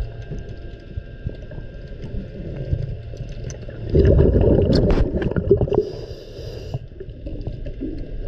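Muffled underwater sound picked up through a camera's waterproof housing beneath a boat hull: a steady low rumble with scattered clicks and ticks. About four seconds in a louder rush of gurgling noise starts suddenly and lasts a little under two seconds.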